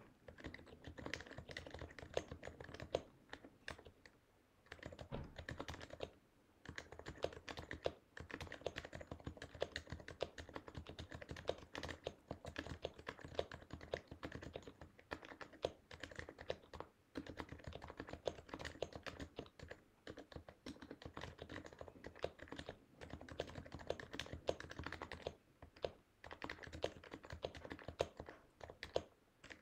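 Fast typing on a Happy Hacking Keyboard Professional Hybrid Type-S with lubed Topre 45 g Type-S switches: a dense run of soft keystrokes with a few brief pauses and some louder single strokes.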